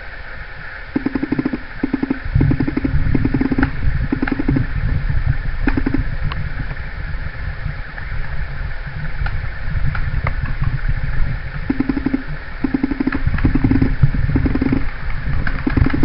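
Paintball markers firing in short rapid bursts, a dozen or so rattling strings of shots in two spells, with scattered single sharp cracks. Under it runs a steady low rumble.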